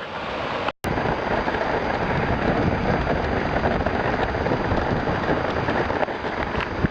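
Hailstorm: hail and rain pelting down in a dense, steady clatter of countless small hits. A brief dropout just under a second in breaks it.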